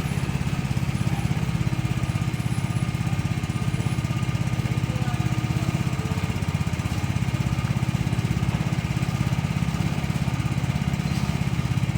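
A small engine-driven machine running steadily at a constant speed, with a rapid, even low drone.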